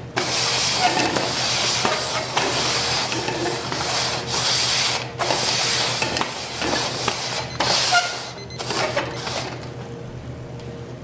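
Red plastic party cups, upside down, being slid quickly back and forth across a wooden tabletop: a continuous rubbing, scraping sound with a couple of brief breaks, dying down near the end as the shuffling stops.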